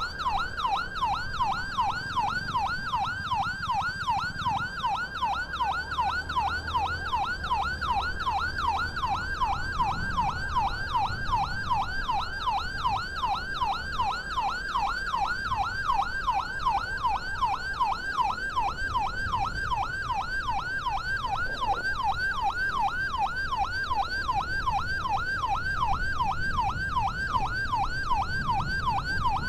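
Ambulance's electronic siren sounding a fast yelp, about two and a half sweeps a second, warning traffic to give way. The low rumble of the moving vehicle runs underneath.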